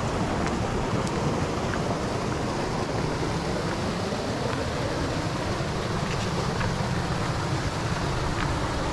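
Steady rush of water pouring over a check dam's spillway, with wind buffeting the microphone.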